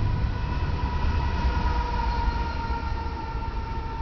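Rear diesel locomotive of a Union Pacific double-stack intermodal freight train passing and moving away: a steady low rumble with a high whine that sinks slightly in pitch, easing off a little near the end.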